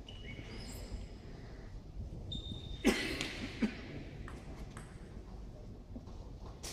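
Two sharp knocks of a table tennis ball about three seconds in, the second a little quieter, over the low steady background of a large sports hall.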